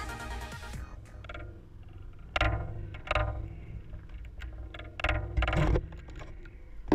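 Electronic music fades out within the first second. Then air rushes over the microphone of a GoPro being swung around on a homemade centriphone rig, in several short whooshes over a low rumble.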